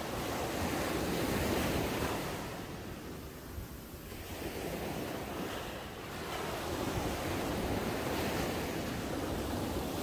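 Small waves breaking at the shoreline and washing up over sand. The surf swells, eases to a lull about three to four seconds in, then builds again as the next wave comes in.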